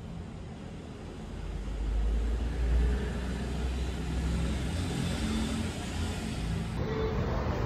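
A low, steady rumble with an even hiss over it, a little louder from about two seconds in.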